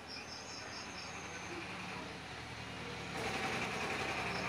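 Steady background noise with a low hum that grows louder about three seconds in, and a bird chirping in short repeated notes near the start and again near the end.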